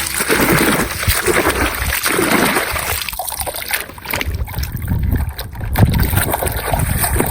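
Water splashing and trickling as a toy airplane is washed, with low handling rumbles in the second half.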